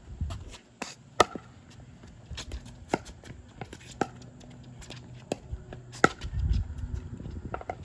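Pickleball rally: paddles hitting the hollow plastic ball in about seven sharp pops, roughly one a second, with fainter ticks between them. A low rumble comes in near the end.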